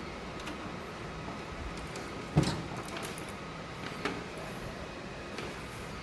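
A few sharp clicks and knocks over a steady hiss: the loudest about two and a half seconds in, another about four seconds in, and fainter ticks around them.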